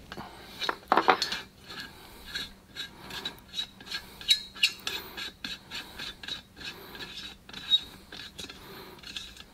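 Metal clicking and scraping as a wrench and then a hand turn the threaded tube on top of a pressure lantern's metal fount to unscrew it. Irregular sharp ticks, with the loudest cluster about a second in.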